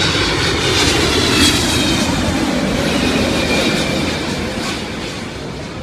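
Vietnam Airlines Boeing 777-200ER's jet engines passing close on landing approach: a loud rush of jet noise with high whines that fall in pitch as the airliner goes by, fading toward the end.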